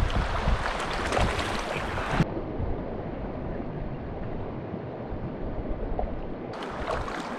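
Shallow, rocky mountain creek rushing over stones, a steady splashing hiss. About two seconds in the sound turns duller and muffled, the high hiss dropping away, and it brightens again briefly near the end.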